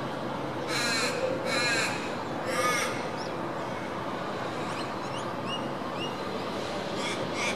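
A corvid cawing: three harsh caws about a second apart, with short rising chirps from a smaller bird in the pause, and the cawing starting again near the end.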